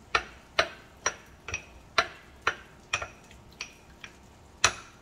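A utensil clicking against a small bowl about twice a second while roasted garlic is mashed with olive oil into a paste; the last clicks come further apart.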